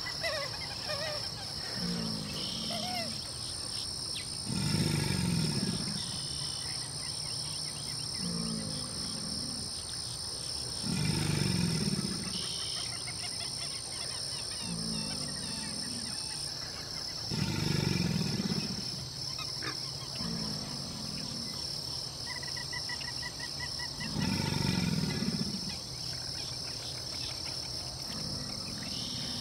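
American alligator bellowing: four deep, rumbling bellows, each about a second long, spaced six to seven seconds apart.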